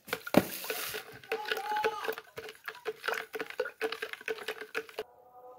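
Wet crackling and squelching of peeled kinnow mandarin segments crushed by hand in a plastic jug: a quick, uneven run of small clicks that stops about five seconds in.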